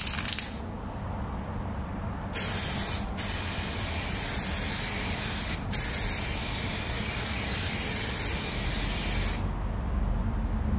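Aerosol can of 2K clear coat spraying a coat onto a plastic headlight lens: a continuous hiss starting about two seconds in, with two brief breaks, and stopping about a second and a half before the end. A few sharp clicks at the very start.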